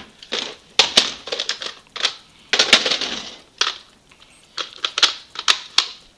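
Hard plastic clicks, clacks and rattles of Nerf Modulus Recon Mk II blaster parts being handled and tried against each other, with a short scraping slide about two and a half seconds in.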